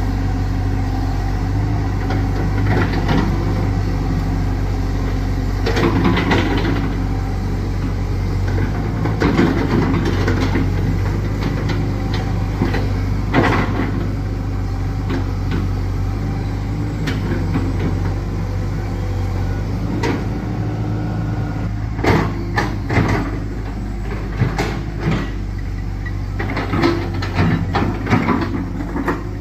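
Excavator diesel engine running steadily, with irregular metallic clanks and knocks from the machine working, coming more often in the second half.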